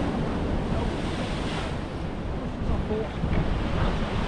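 Wind blowing across the microphone over the steady wash of sea waves on a rocky shore.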